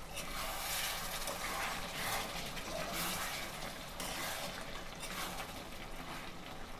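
Metal spatula stirring thick goat-meat curry in a steel wok on a gas stove: steady wet scraping and stirring against the pan.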